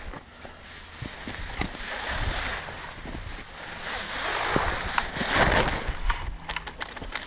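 Climbing boots scuffing and knocking on loose rock, with gear clicking, as a climber downclimbs. A rushing noise swells twice, loudest just after the middle, and sharp clicks come thick near the end.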